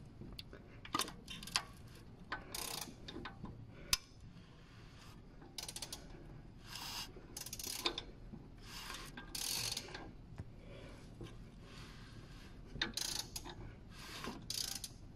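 Timing chain and chain tensioner of a Toyota AZ-series engine being turned over by hand: irregular ratcheting clicks and short rattles as the chain moves and the tensioner ratchets out to set the chain tension.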